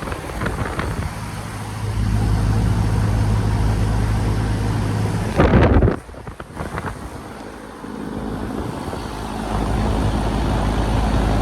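1998 Heil 5000 3-ton central air conditioner condenser running: a steady low hum from the unit with the rush of its fan. The hum gets louder about two seconds in. A brief loud rushing noise comes about halfway through, then it is quieter for a couple of seconds before the hum builds again near the end.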